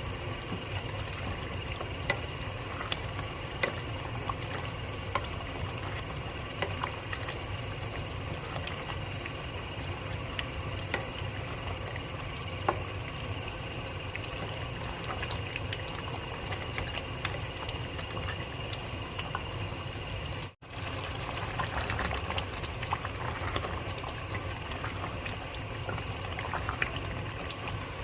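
A pot of cauliflower-and-meat curry bubbling as it cooks, with small pops scattered through it. The sound cuts out for an instant about twenty seconds in.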